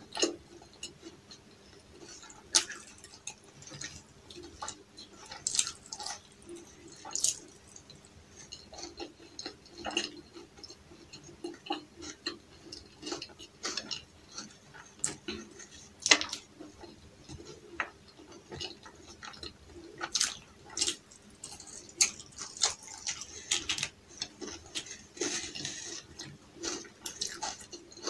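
Close-miked eating sounds: wet mouth clicks, lip smacks and chewing as a person eats flatbread with chicken curry, in many short irregular clicks.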